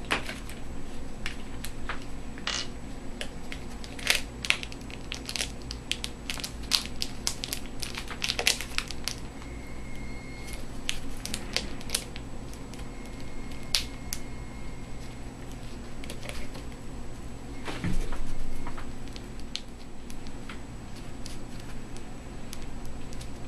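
Open end of a filled metal paint tube being folded and crimped shut by hand: irregular crinkling and crackling clicks of the soft metal, thickest a few seconds in, with one louder crunch about three-quarters of the way through over a steady low hum.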